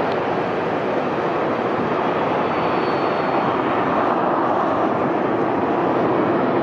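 Boeing 757 freighter's twin jet engines running at takeoff thrust at the start of its takeoff roll, heard from afar as a steady, even rushing roar.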